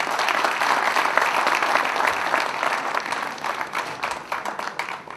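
Audience applauding, a dense patter of many hands clapping that swells early and gradually thins out near the end.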